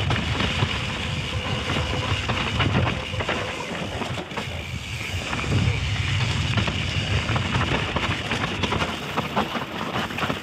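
Wind rumbling on a helmet or handlebar camera microphone as a mountain bike moves along a dirt trail, with scattered clicks and rattles from the bike.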